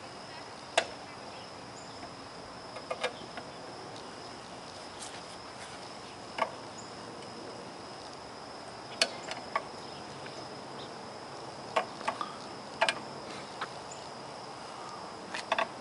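Irregular clicks and knocks from hands working on the electric push lawnmower, its motor not running, over a steady high-pitched insect drone.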